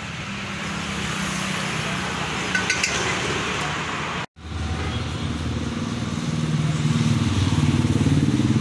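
Motor traffic running past on the road, a steady engine hum that cuts out for an instant about halfway and then grows louder toward the end as a vehicle comes close. A few light clinks of steel serving utensils come before the break.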